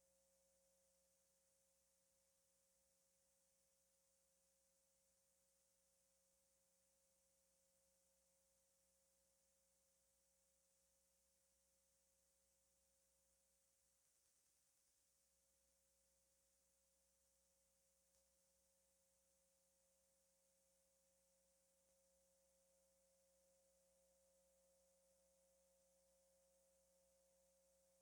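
Near silence: only a faint steady tone and a high hiss.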